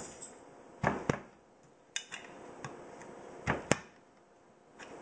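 Tip of an Entrek Badger fixed-blade knife being punched into the lid of a metal food can, struck down with the palm: sharp knocks in two pairs, about a second in and again about three and a half seconds in, with lighter taps between.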